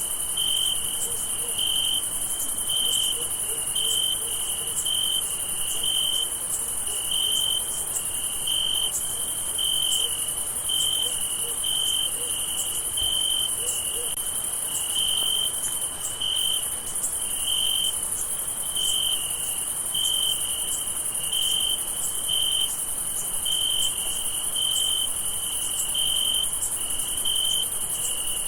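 Crickets chirping in a steady night chorus. One cricket's chirps repeat about every three quarters of a second over a continuous high shrill of many more insects.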